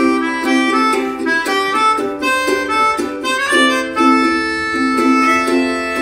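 A melodica playing a melody of held reedy notes over a strummed ukulele.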